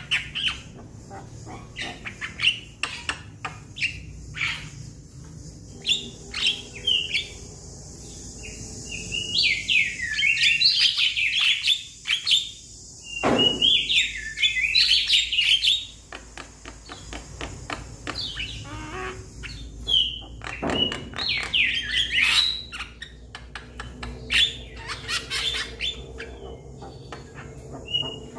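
Young Javan myna calling: rapid runs of sharp clicking notes and harsh, chattering squawks, the chatter coming in three louder bursts through the middle of the stretch.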